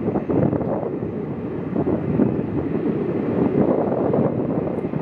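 Wind buffeting the microphone over the low rumble of a taxiing Boeing 767-300's jet engines at low power, a steady unbroken noise.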